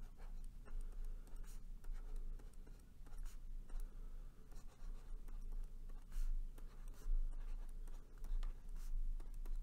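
Stylus scratching and tapping on a pen tablet in quick, irregular short strokes as an equation is handwritten, over a steady low electrical hum.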